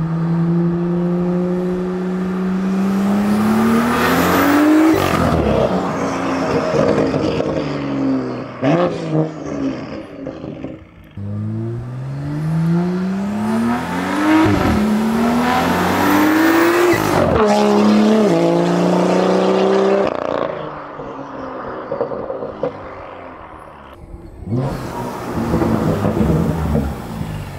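BMW M2's turbocharged N55 straight-six, on an MHD Stage 2+ tune with a catless downpipe and performance exhaust, pulling hard. The engine note climbs in pitch and drops sharply at each upshift, over two full-throttle runs. It then fades, and picks up again near the end as the car comes close.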